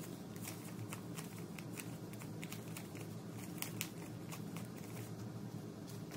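Paper US dollar bills being counted by hand: irregular crisp flicks and rustles of the notes, a few a second, over a faint steady hum.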